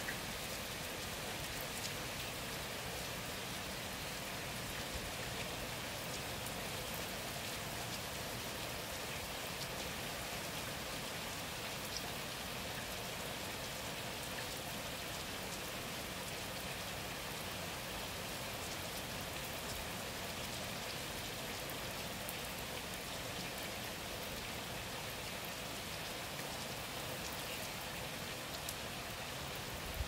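Steady rainfall: an even hiss of rain falling on surfaces, with a few louder single drops ticking now and then.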